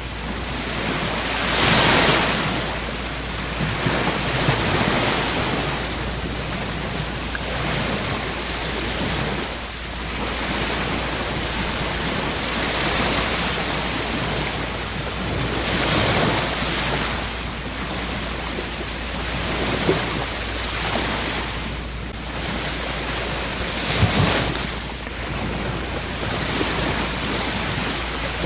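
Sea waves breaking and washing on a shore, a continuous rush that swells and ebbs every few seconds, with the biggest surges about two seconds in and again a few seconds before the end.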